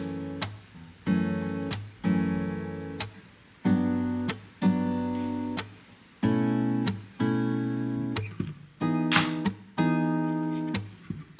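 Music: acoustic guitar chords strummed about once a second, each ringing out and fading before the next.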